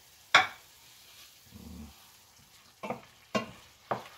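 Wooden spoon knocking and scraping against a stainless steel pan while the cooked bok choy is scooped out. There is one sharp knock about a third of a second in, the loudest, and three more about half a second apart near the end, over a faint sizzle from the pan.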